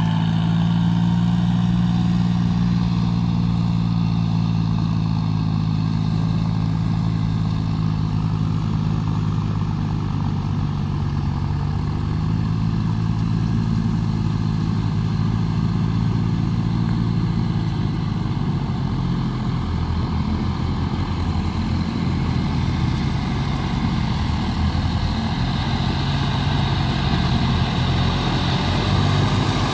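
John Deere farm tractor's diesel engine running steadily while it tills a wet field. About two-thirds of the way through, the steady engine note turns rougher and more uneven.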